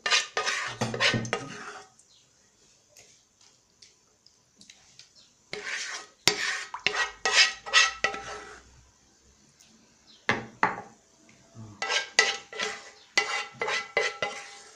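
A spoon scraping and knocking against a cooking pot and a glass baking dish as sauce is spooned over a gratin. The clatter comes in three bursts of a few seconds each, with a light ringing tone.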